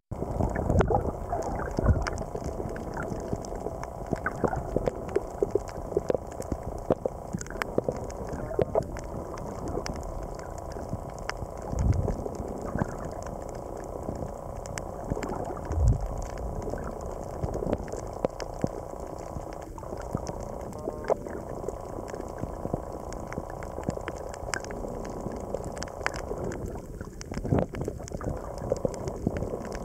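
Underwater coral-reef ambience: a constant crackle of sharp clicks over a low watery rumble, broken by a few dull thumps.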